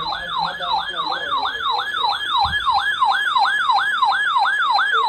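Electronic siren sounding a fast yelp, its pitch sweeping repeatedly about three times a second.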